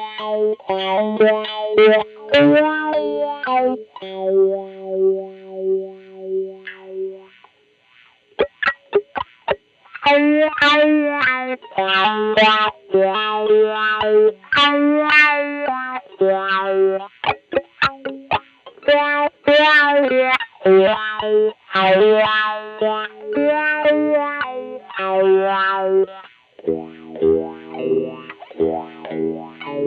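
Electric guitar, a 1994 Mexican-made Fender Stratocaster fitted with GFS reverse-wound Jimi pickups, playing chords and single-note riffs. A sustained note pulses evenly for a few seconds, followed by a spell of short muted scratches. Lower notes come in near the end.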